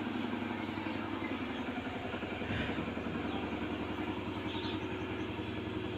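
Domestic cat purring steadily, a continuous fast-pulsing low buzz.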